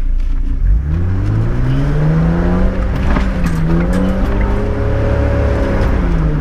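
A four-wheel drive's engine revs hard under load while working through deep ruts. It climbs sharply in pitch about a second in, holds high with a brief dip midway, then drops and picks up again near the end.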